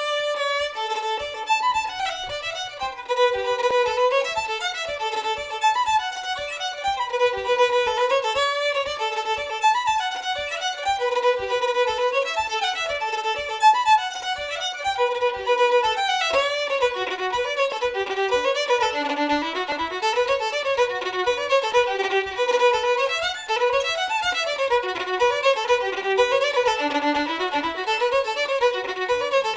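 Solo fiddle playing a fast Scottish fiddle tune: quick bowed runs of notes with no accompaniment.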